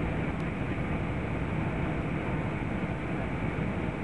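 Steady engine and airflow noise heard inside the cabin of an airliner descending to land.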